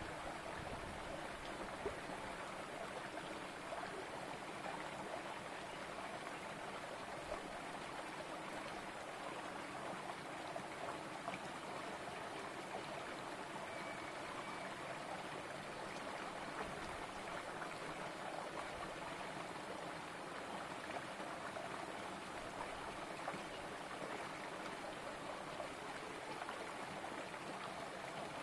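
Shallow rocky stream running over stones in a small cascade, a steady trickling water sound.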